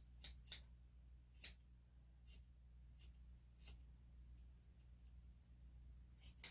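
Grooming scissors snipping the thick hair on a dog's feet: about eight short, crisp snips at uneven intervals, then a pause of a couple of seconds before a last quick pair.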